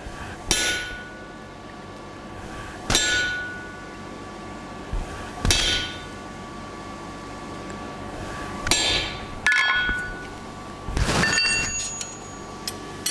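Hand hammer striking a hot chisel driven into a glowing steel bar on an anvil, cutting the groove along which the bar will be split. About six blows, two to three seconds apart, each with a brief metallic ring, with a longer ringing clatter near the end.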